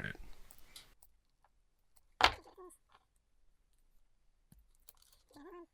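Wire cutters snipping through the power supply's wires, connectors or zip ties: one sharp snip about two seconds in, then faint clicks and plastic rustling, with a short squeak near the end.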